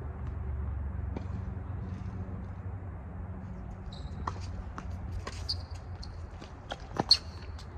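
Tennis rally on a hard court: faint racket hits and ball bounces from the far end, then a louder, sharp racket strike on the return near the end. Short high squeaks of sneakers on the court come with several of the hits.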